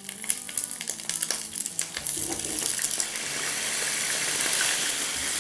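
Potato pieces sizzling and spattering in hot oil in a frying pan: sharp crackling pops as the pieces go in over the first couple of seconds, settling into a steady sizzle.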